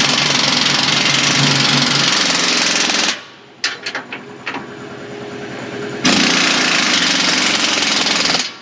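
Impact wrench running in two long hammering bursts, driving home the bolts of a combine feeder house floor, with a few sharp metal clicks in the pause between.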